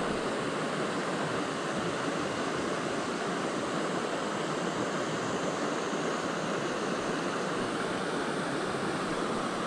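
Clear mountain river flowing over rocks and shallow riffles: a steady rush of running water.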